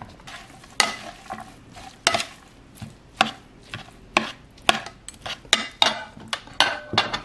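Metal spoon and fork tossing a chopped herb salad in a large bowl, clinking and scraping against the bowl in a quick, uneven run of about two strokes a second as the vinegar dressing is mixed in.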